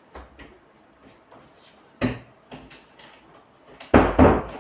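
A few knocks and bumps of things being handled or moved, one sharp knock about two seconds in and a louder cluster of thuds near the end.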